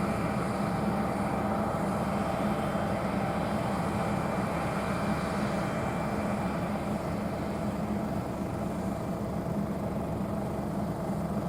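John Deere T670i combine harvester running steadily, a constant machine drone that eases off slightly in the second half.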